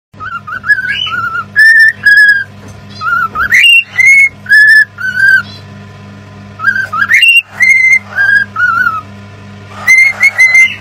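Cockatiel whistling a tune: short, clear whistled notes with quick upward slides, the same phrase whistled twice, over a faint steady low hum.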